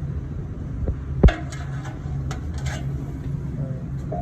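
Steady low electrical or mechanical hum, with one sharp knock about a second in.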